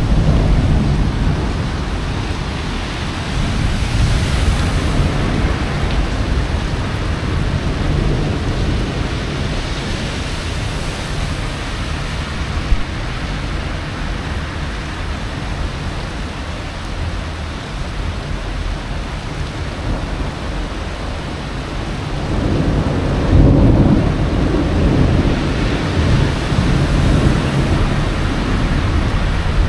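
Rain falling steadily while thunder rumbles low; a louder rumble of thunder swells up about three-quarters of the way in.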